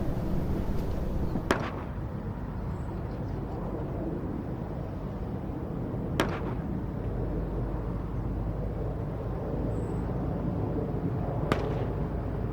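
Outdoor shooting-range ambience: a steady low rumble, broken three times, a few seconds apart, by a faint sharp crack.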